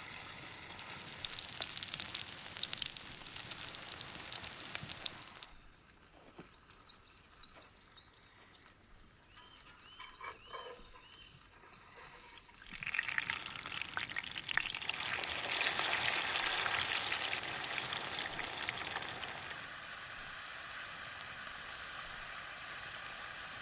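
Egg pancake batter sizzling in a skillet over an open fire, loud at first, dropping away for several seconds in the middle, then loud again before settling to a steadier, softer sizzle. A few short high chirps sound during the quiet middle stretch.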